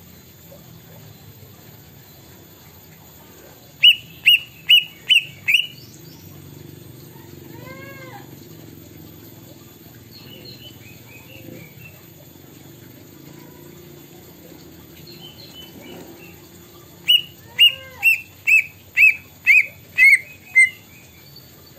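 Caged green leafbird singing its imitation of a plaintive cuckoo (kedasih): a run of five sharp, evenly spaced whistled notes about four seconds in, and a longer run of eight near the end whose last notes drop slightly in pitch. Faint softer chirps sound between the two runs.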